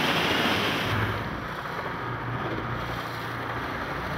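Motor fishing boat under way on open sea: a steady rush of wind and water, louder in the first second, over the low, even hum of the boat's engine.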